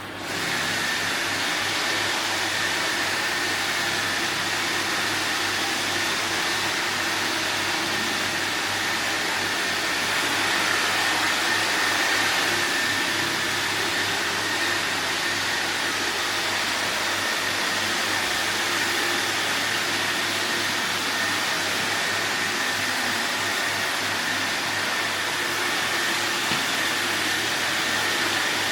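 Robot vacuum cleaner running steadily: an even whirring hiss with a constant high whine over it.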